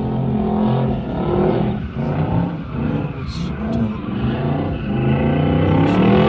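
Drift car's engine revving up and down repeatedly as it slides around the lot, heard from inside a nearby car.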